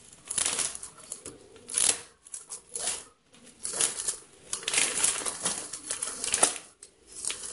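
Orange box cutter slicing through a damp plastic courier mailer in irregular scraping strokes with sharp clicks, the plastic crinkling as it is pulled open.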